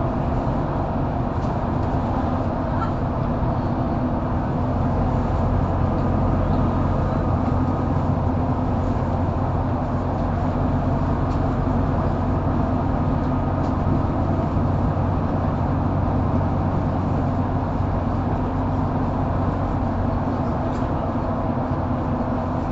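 Mercedes-Benz O530 Citaro facelift intercity bus running at a steady speed, heard from inside the passenger cabin: an even engine drone with road noise.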